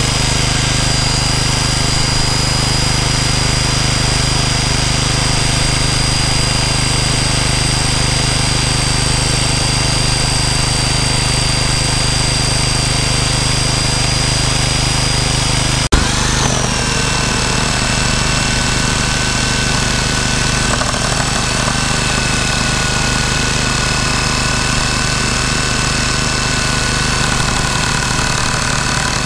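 Electric jigsaw cutting a wooden board, over the steady running of the portable petrol generator that powers it. About sixteen seconds in there is a sharp click, and after it the whine settles at a lower pitch.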